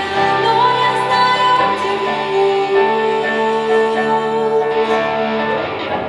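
A woman singing a slow song in held notes, accompanied by two electric guitars; her voice drops out near the end while the guitars play on.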